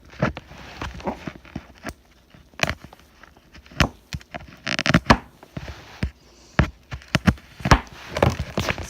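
A dull knife hacking and scraping at plastic wrapping on a cardboard box: irregular clicks and knocks, with a short burst of rustling plastic about five seconds in.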